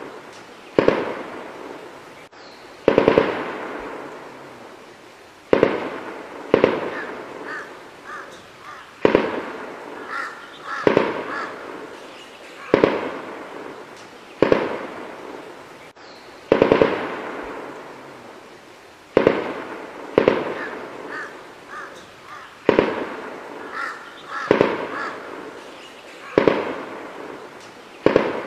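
Gunfire in an armed encounter: single shots going off irregularly, one every second or two, each echoing and dying away.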